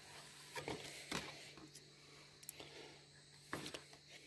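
Faint handling sounds as a pair of ear defenders is lifted out of its cardboard box: a few soft taps and clicks, spaced irregularly, over a faint low hum.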